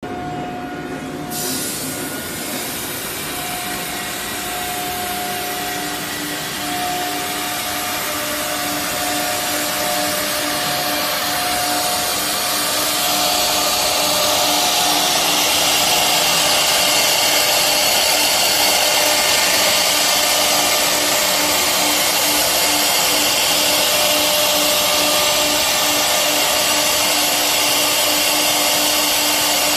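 A large CNC router running: a steady machine noise with a few held tones, the kind a router spindle and its motors make, which starts about a second and a half in and grows louder through the first half before holding steady.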